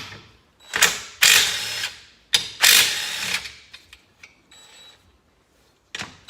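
Cordless impact wrench running in several short bursts on the 13 mm crankcase bolts of a Polaris Sportsman 800 engine, breaking them loose. A briefer, quieter whir follows about two thirds of the way through.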